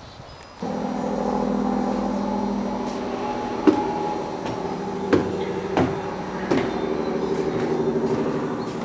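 An electric sander switches on abruptly about half a second in and runs steadily with a humming motor tone, with a few sharp knocks in the middle as it works over the deck boards.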